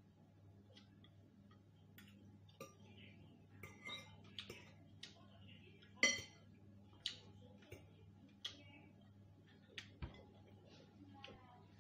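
Metal fork clinking and scraping against a ceramic bowl as noodles are stirred and twirled: a string of small irregular clicks, the loudest about six seconds in.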